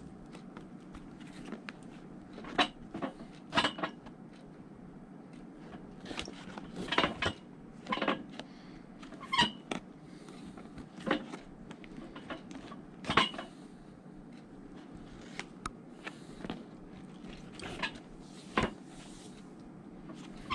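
Hand-stitching a boot welt: thread pulled through the leather welt and sole, with needle and handling clicks, in short irregular strokes every second or two.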